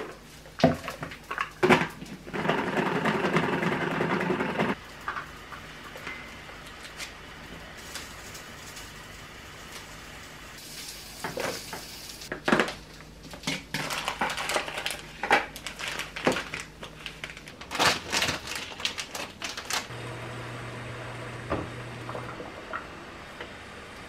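Kitchen handling sounds from a plastic salad spinner, bowl and ceramic plate: scattered knocks and clicks, with a dense, loud rattling stretch of about two seconds a few seconds in. Later comes another run of knocks as salad goes onto the plate, and a brief low hum near the end.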